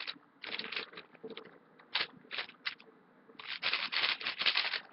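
YuXin 3x3 speed cube being turned by hand, its plastic layers clacking in a few short bursts of turns, then a quick unbroken run of turns over the last second and a half.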